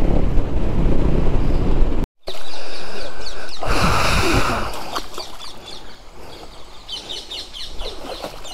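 Motorcycle engine running with wind noise as it rides along a dirt road. It cuts off abruptly about two seconds in. A loud rushing hiss from a shallow stream follows and fades after a couple of seconds, then birds chirp several times over quieter background noise.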